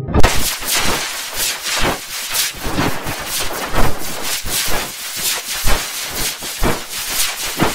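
Harsh, heavily distorted digital noise that cuts in abruptly, crackling and sputtering in rapid irregular pulses with no clear melody: an effects-processed, bit-crushed mangling of the music.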